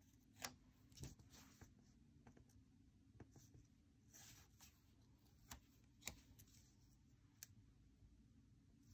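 Near silence with faint taps and a soft paper rustle as a paper sticker is handled and pressed down onto a planner page.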